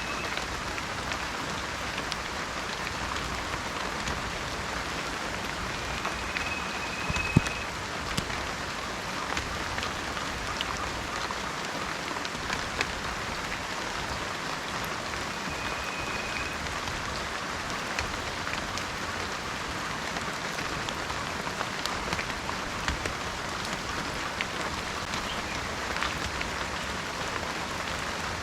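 Steady heavy rainforest rain, a constant hiss of rainfall with scattered sharp drip impacts, one louder than the rest a little past seven seconds in. Twice a short, high, steady whistle sounds above the rain.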